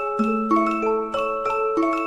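Background music: a light melody of struck, bell-like notes, several a second, ringing over held chords.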